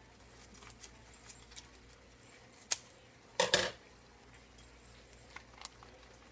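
Scattered light clicks and taps of a cooking utensil in a pan on the stove, with one sharp click about two and a half seconds in and a short clatter a moment later.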